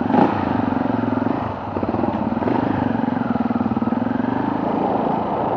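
Off-road motorcycle engine running under throttle while riding: it revs up right at the start, eases off briefly about a second and a half in, then pulls steadily again.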